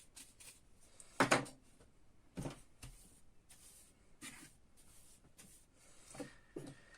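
A few short knocks and light scrapes from handling the parts of an electromagnetic starter, the loudest about a second in, as sanding filings are cleared away.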